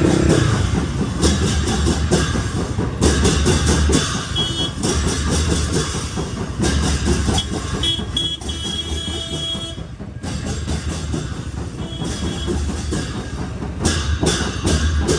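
Background music with a fast, clicking percussive beat, over the running noise of a motorcycle ride.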